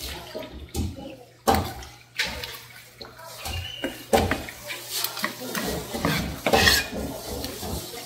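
Running tap water splashing onto a cutting board while a barred knifejaw (rock bream) is gutted and rinsed, the knife scraping, with several sharp knocks of the knife and fish against the board.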